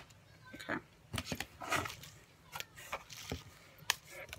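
Hands lifting items out of a cardboard box packed with bubble wrap: scattered rustles, crinkles and light knocks, each brief and irregularly spaced.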